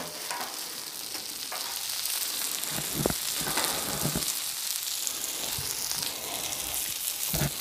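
Brussels sprouts sizzling in bacon grease on a Blackstone steel flat-top griddle, a steady frying hiss. A few knocks and scrapes of a metal scraper on the griddle are heard as the sprouts are pushed into a pile.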